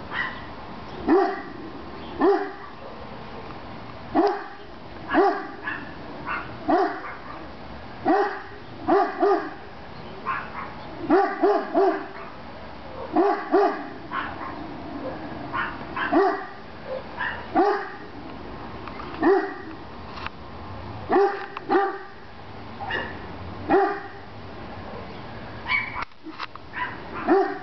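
Large dog barking repeatedly at a blimp overhead, alarm barking to defend its yard. Single barks and quick doubles or triples come about every one to two seconds.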